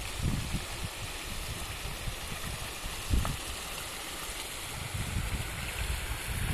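A mountain stream rushing steadily, with low gusts of wind buffeting the microphone and a single short bump about three seconds in.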